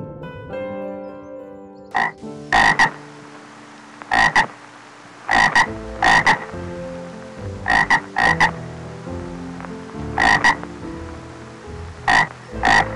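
Frog croaking: short, loud croaks, mostly in pairs, repeated about every two seconds, over soft sustained background music.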